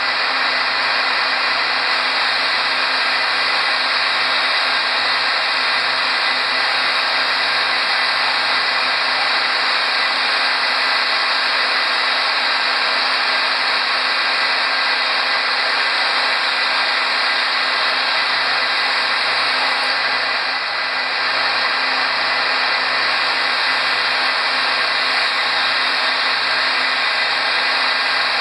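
Power grinder running steadily while grinding glass: a loud, even hiss with a faint steady hum, dipping slightly about twenty seconds in.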